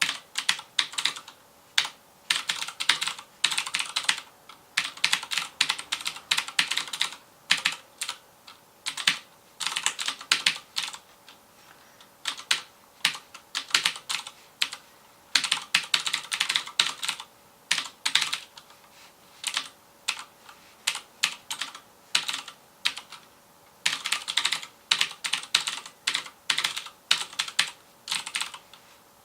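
Typing on a Filco Majestouch Convertible 2 mechanical keyboard with Cherry MX Blue switches: rapid runs of clicky keystrokes broken by short pauses.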